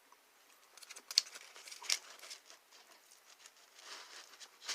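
Pepperoni pizza being eaten close to the microphone: soft, irregular crunching and mouth clicks from chewing, starting about a second in.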